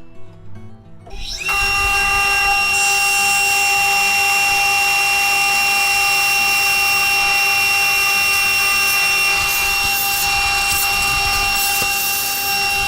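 Sherwood table saw motor switched on about a second in and running steadily at full speed with a high, constant whine, while its blade is raised to score up through the MDF base of a crosscut sled.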